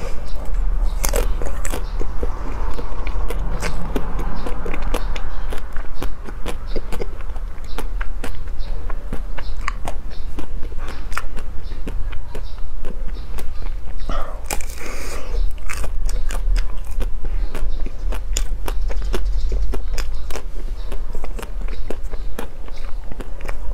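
Close-miked biting and chewing of a frozen ice-cream bar with a hard coated shell and crunchy chocolate centre: many small crunches and mouth clicks, over a low steady hum.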